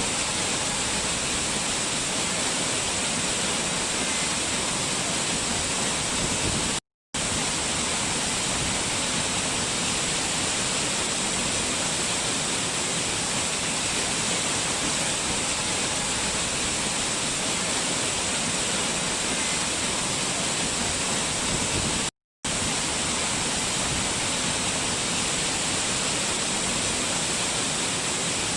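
Waterfall rushing: a steady, even roar of falling water with no change in level. It drops out to silence twice for a split second, once about a quarter of the way through and again about three-quarters through.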